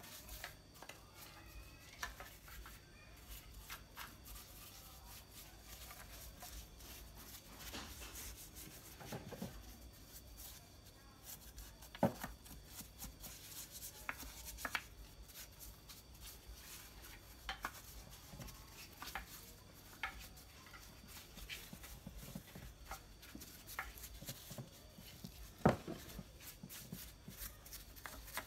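Small brush dabbing and rubbing polish into a carved wooden statue, with scattered light taps and clicks of the brush against the wood; two sharper knocks, one partway through and one near the end.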